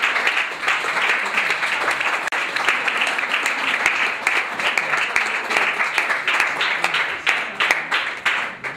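Audience applauding, many hands clapping at once; the applause cuts off abruptly near the end.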